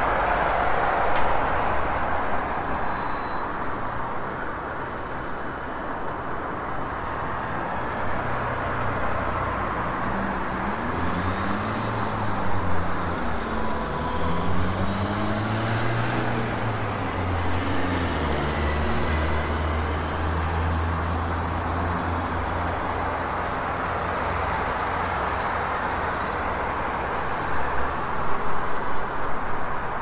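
City street traffic: a steady wash of cars passing and idling. From about ten seconds in, a nearby engine runs with its pitch rising and falling several times.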